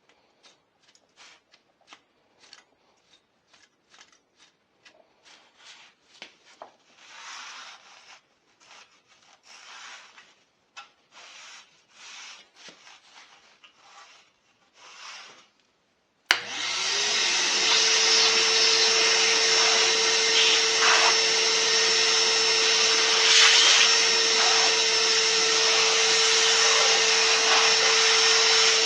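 Light scattered clicks and rubbing from handling things for about sixteen seconds, then a vacuum cleaner switches on abruptly and runs steadily with a constant hum, cleaning up the work area.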